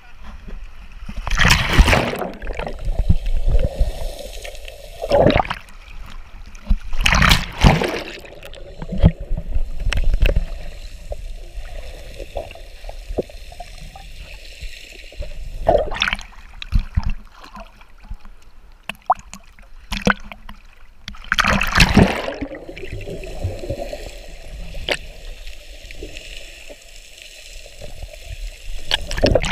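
Lake water heard from a camera held under water: a muffled gurgling and sloshing, broken by several loud splashing rushes, the biggest about 2, 7 and 22 seconds in.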